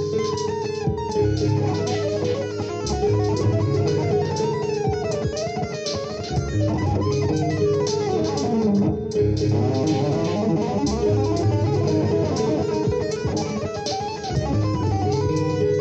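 Extended-range electric guitar played with two-handed tapping: low bass notes and a winding melodic line sounded together in a fusion-style passage.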